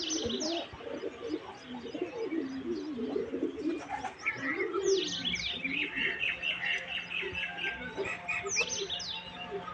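Pigeons cooing in low, wavering calls, with small birds chirping in quick high notes over them, busiest from about five seconds in.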